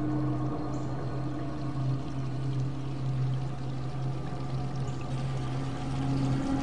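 Rushing air over the microphone as the KMG XXL pendulum ride swings its riders through the air, over steady low sustained tones from the ride's music that shift to a new chord near the end.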